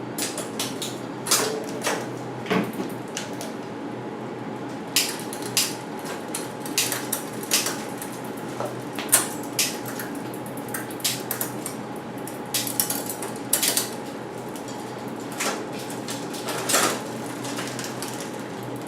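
Irregular metallic clicks and clinks of tools and bike drivetrain parts being handled, about twenty separate knocks spread unevenly, over a steady background hum.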